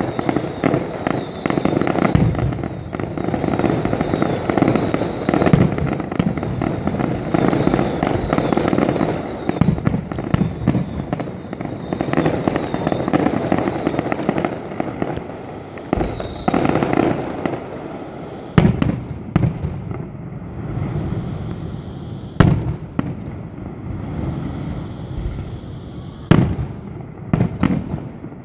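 Fireworks display: dense, rapid crackling and popping for most of the first two thirds, with a short falling whistle about halfway through. It then thins out to a few separate loud bangs spaced several seconds apart.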